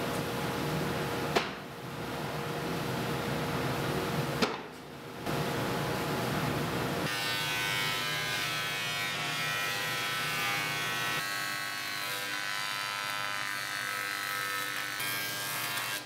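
Benchtop jointer running with a steady motor whine while white oak boards are fed across its cutterhead, starting about seven seconds in. Before that, a steady shop noise with two sharp knocks.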